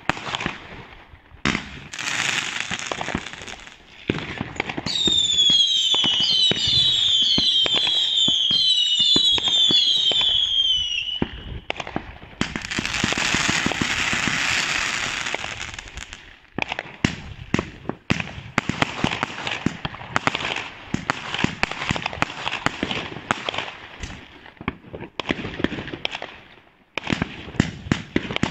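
Consumer fireworks going off: bangs and crackling, then from about five seconds in a run of overlapping descending whistles lasting some six seconds. After that comes a steady hissing rush as several sparkling comets shoot up, then a dense stretch of quick pops and crackles.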